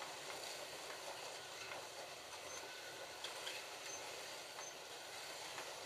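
Slot.it Ford GT40 slot cars running on the track, a steady whirring hiss of their small electric motors and guides in the slots, with a few faint clicks.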